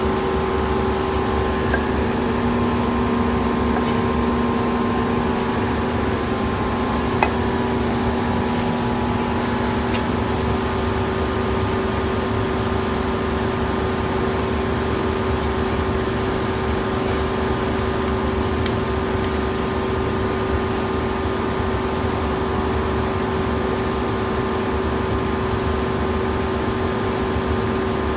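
A steady mechanical hum of a machine running, with a few fixed pitches and no change in speed, and one faint click about seven seconds in.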